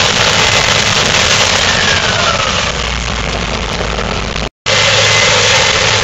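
Case IH 8120 combine harvesting corn: its diesel engine and threshing machinery run as a loud, steady noise. The sound drops out completely for a moment about four and a half seconds in.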